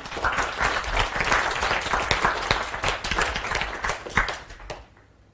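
Audience applauding at the end of a talk: many hands clapping densely, thinning out and stopping near the end.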